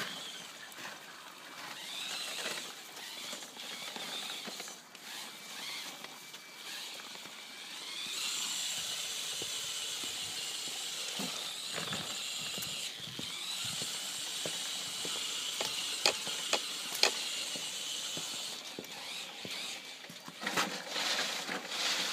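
Homemade 1:10 scale RC rock crawler's electric motor and gears whining as it drives. The whine comes and goes at first, rises about eight seconds in and holds steady for a stretch, with a few sharp clicks.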